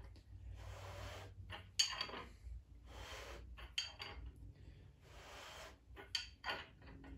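A freshly assembled Ford 427 SOHC V8 short block being turned over by hand, pistons and rings sliding in the bores. It goes in about six short strokes, each a soft swish with light metallic clinks.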